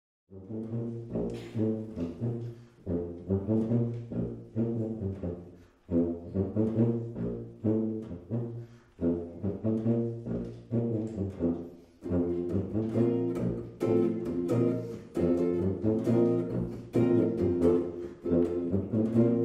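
Small jazz combo of tuba, saxophone and archtop electric guitar starting a tune just after a brief silence, the tuba playing a prominent low bass line under the other instruments.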